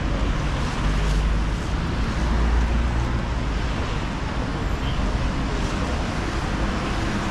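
Rainy city street ambience: a steady hiss of car tyres on the wet road mixed with light rain, with a deep rumble that swells about one to three seconds in.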